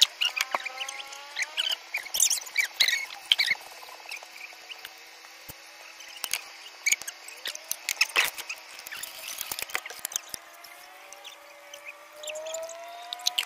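Plastic and metal dishes clattering and knocking as they are handled. Near the end, water is poured from a plastic pitcher into a metal pot, its pitch rising as the pot fills.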